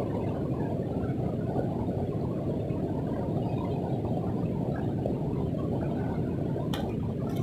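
Steady rushing of a river flowing over rocks, with a couple of faint clicks near the end.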